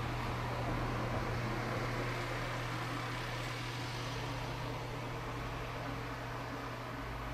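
Steady low mechanical hum under an even hiss, easing off slightly toward the end.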